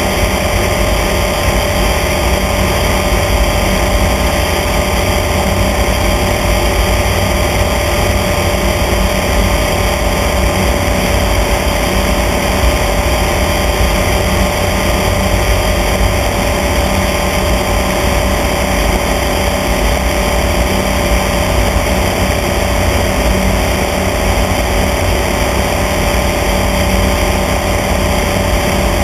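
Light aircraft's engine and propeller droning steadily in level cruise, with a rush of air noise over the microphone.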